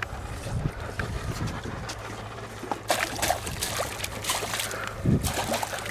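Low wind rumble on the microphone, then from about three seconds in a hooked pike thrashing at the water's surface on a Red Devil spoon, a run of sharp splashes.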